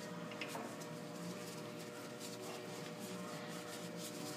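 Faint rubbing of a cloth shop rag wiping rust and grime off a steel suspension joint, with a light click about half a second in.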